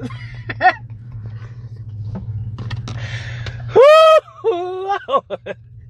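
A woman chews a mouthful of collard greens with faint mouth clicks, then lets out one loud, high "Woo!" of delight about four seconds in, followed by a few short "mm" sounds. A low steady hum runs underneath.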